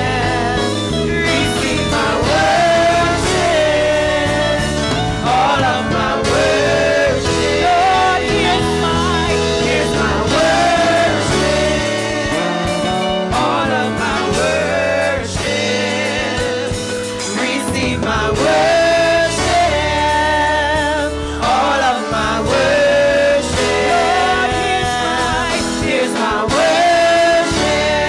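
Live gospel praise-and-worship singing by a small group of women on microphones, with instrumental backing, at a steady loud level.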